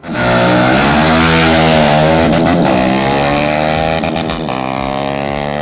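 Motorcycle engines running loud as the bikes ride toward the camera, their pitch dipping and rising with the throttle.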